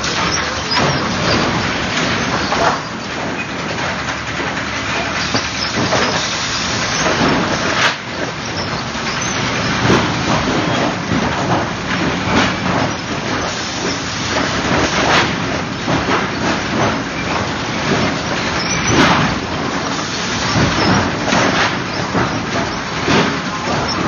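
Automatic sawmill lumber stacker and sticker-placing machine running: a continuous loud machinery din with frequent sharp clacks and knocks as boards and sticks drop onto the stack.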